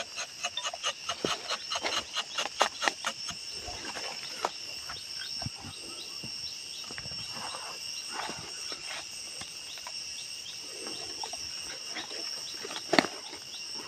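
Rubber-tapping knife shaving a thin strip of bark from a rubber tree's tapping cut, a quick run of short scraping clicks in the first few seconds that then stops. A steady high insect chorus sounds behind it.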